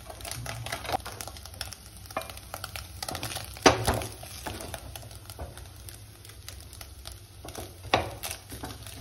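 A spatula scraping and scooping scrambled egg around a stainless steel kadhai and onto a steel plate, with scattered scrapes and light clicks. Two sharp metal knocks stand out, one a little before halfway and one near the end.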